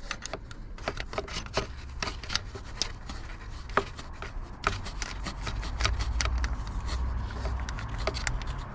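Irregular metallic clicks and scraping as the bolt of a new drive pulley on a Mercedes M113 V8 is threaded in by hand, with a steady low rumble underneath.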